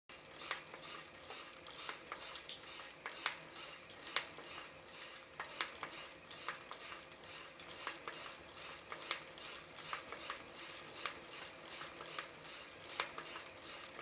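City bicycle's rear wheel turning with sharp metallic clinks, the 'kan-kan' noise, coming irregularly about once a second over a continuous noise. The clinking comes from the freehub, not the rear hub bearing, and is a sign that the part will fail before long.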